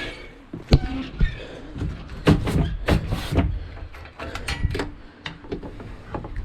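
Footsteps on a bush track, an irregular series of crunches and knocks with rustling, the densest and loudest about two to three and a half seconds in.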